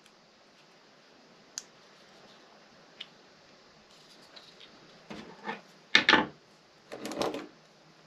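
Heat-shrink tubing being pushed by hand over a USB cable's plug: two faint clicks, then three short rubbing and scraping sounds in the second half, the loudest about six seconds in.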